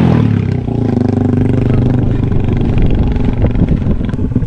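Custom bobber motorcycle's engine running, with a brief rev at the start and then a steady note that turns choppier and less even near the end.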